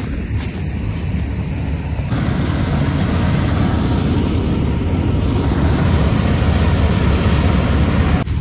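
Combine harvester running while it cuts wheat: a steady engine and machinery drone, a step louder from about two seconds in.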